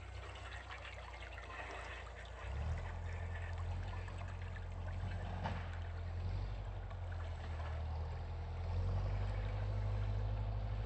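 Water churned by the propellers of a homemade aluminium bait boat as it pulls away across a pond: a steady rushing, trickling wash. A low rumble runs beneath it and gets louder about two and a half seconds in and again near the end.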